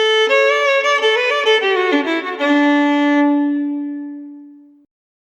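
Solo violin playing a short phrase of notes that step downward, ending on a long held low note that fades away about five seconds in.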